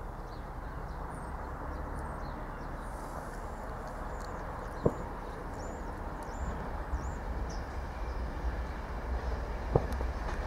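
Steady low rumble of a train, growing louder near the end, with faint high chirps over it and two sharp clicks about five seconds apart.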